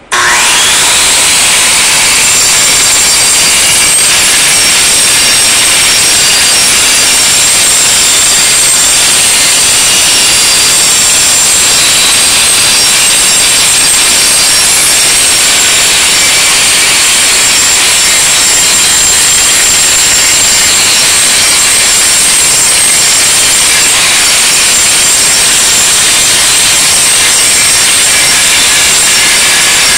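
Handheld angle grinder running steadily at full speed, its disc grinding rust and old paint off the iron slats of a fire escape: a loud, unbroken grinding with a high motor whine over it.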